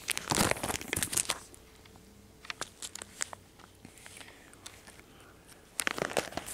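Plastic sleeve pages of a card binder crinkling as they are handled and turned: a burst of crinkling at the start, scattered small clicks and rustles, then more crinkling near the end as a page is flipped over.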